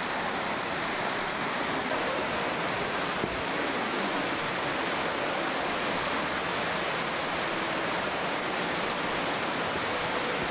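Small waterfall cascading over rocks, a steady rushing of water with no break.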